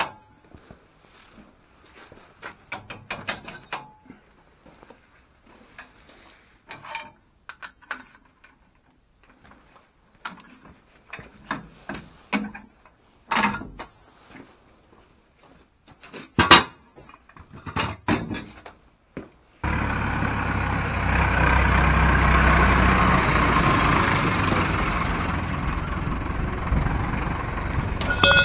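Scattered metallic clanks and knocks as a steel front three-point hitch frame is unpinned and lifted off a tractor. About two-thirds of the way in, a farm tractor's diesel engine starts to be heard, loud and steady, as the tractor drives away.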